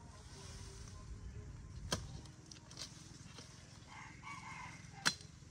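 Two sharp cracks as tall grass stalks are cut with a machete, about 2 s in and a louder one near the end. A rooster crows briefly in the background just before the second crack.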